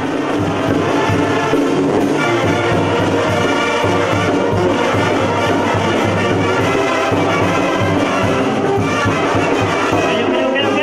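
Mexican banda brass band playing: trumpets and trombones over a sousaphone bass line and a steady beat.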